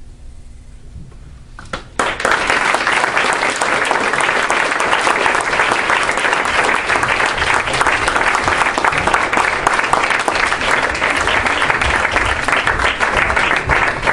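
Audience applauding, breaking out suddenly about two seconds in after a quiet stretch and then going on as a steady, dense clapping.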